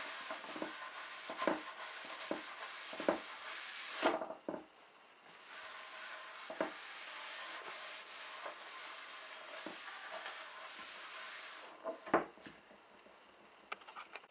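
Blue shop towel rubbing across a polyurethane-coated oak tray top, wiping off the white dust left from sanding the finish. Two stretches of steady wiping, with a short pause about four seconds in and a few light knocks, and a sharper knock just after the wiping stops, about twelve seconds in.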